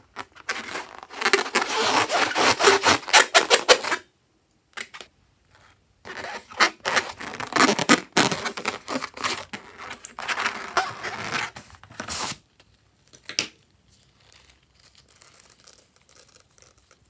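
Hands squeezing and rubbing a filled rubber balloon, giving dense crackling and squeaking in two stretches with a pause between, then a faint rustle near the end.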